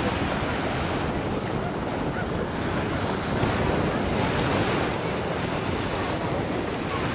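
Steady wind buffeting the microphone over the wash of waves on open water.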